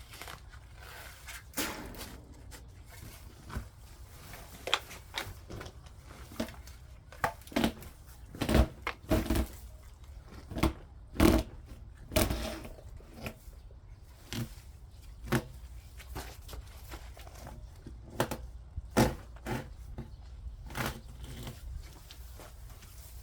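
A garden tool digging into soil and dumping it to fill a waterlogged low spot, heard as irregular scrapes and dull thuds, a little over a dozen in all, loudest in the middle.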